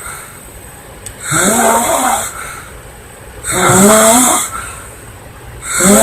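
Woman snoring loudly, one snore roughly every two seconds, each lasting about a second: two full snores, then a third beginning at the very end.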